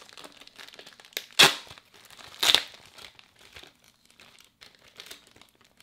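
Clear plastic parts bags and a bubble-wrap pouch crinkling as they are handled, with two louder crackles, about one and a half and two and a half seconds in.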